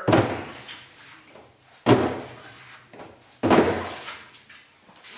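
A wheel and tire being turned by hand in three pushes, each one a sudden heavy thud with a short scraping tail. The pushes come about a second and a half apart.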